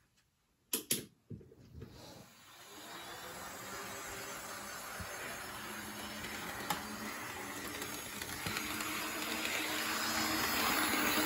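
HO-scale model EF81 electric locomotive running on sectional track: a steady motor whir and the sound of its wheels rolling on the rails, growing louder as it approaches and loudest near the end. Two sharp clicks about a second in.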